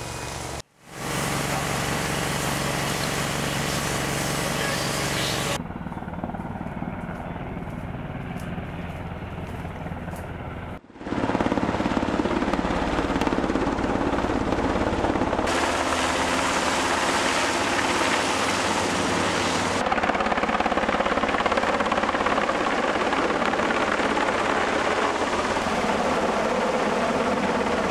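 HH-60M Black Hawk helicopter's rotor and engine noise, running steadily. There is a brief dropout about a second in, a quieter stretch, and then a second dropout near the middle, after which it is louder.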